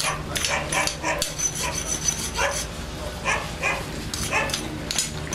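A scraper scrapes barnacles and marine growth off a fishing boat's hull in short strokes, while a dog barks several times around the middle, over a steady low hum.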